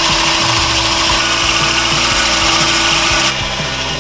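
Corded electric drill driving a 1¾-inch hole saw into a welded metal charge pipe: a steady motor whine under a harsh grinding of the saw teeth on metal. It stops about three seconds in.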